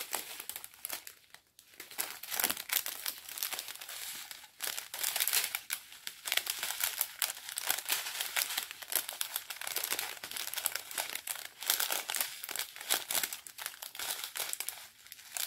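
Strip of small plastic bags of round diamond-painting drills crinkling and rustling as it is handled, with irregular crackles throughout.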